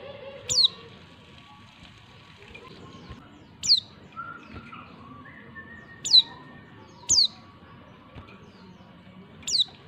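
Female white-eye (pleci) calling: five short, sharp high calls, each sliding quickly down in pitch, spaced irregularly a second to three seconds apart.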